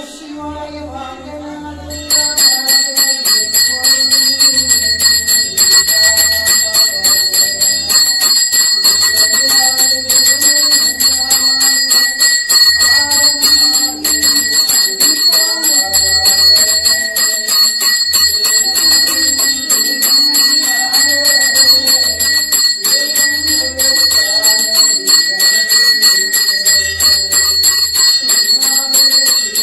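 Temple bell rung rapidly and continuously for the lamp-waving worship (aarti), starting about two seconds in, with devotional music and a repeating low beat underneath.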